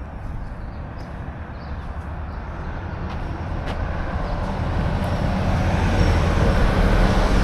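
A vehicle approaching: a low rumble and road hiss that grow steadily louder.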